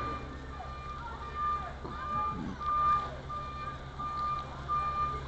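Moving truck's reversing alarm beeping about twice a second, one steady high tone, over the steady low hum of the truck's engine as it backs up.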